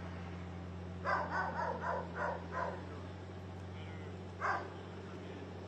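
A dog barking in quick runs of about four barks a second, over a steady low hum.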